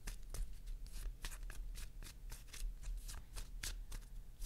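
A deck of playing cards shuffled by hand, overhand style: an uneven run of short card flicks and slaps, about three or four a second.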